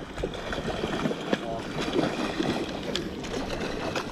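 Water sloshing against the breakwater and wind on the microphone, with faint voices and a few light clicks in the background.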